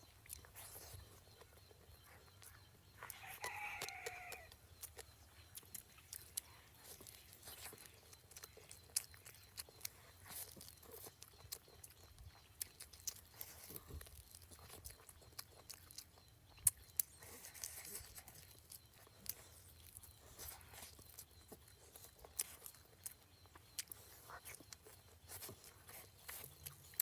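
Close eating sounds: many small clicks and crunches of food being chewed, with one short pitched call or vocal sound about three seconds in.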